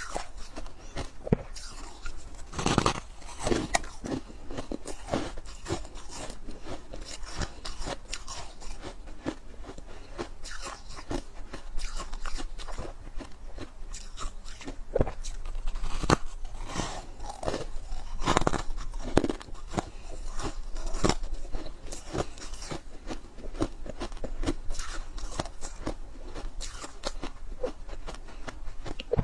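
Freezer frost being bitten and chewed close to the microphone: dense, irregular crunching that goes on without a break.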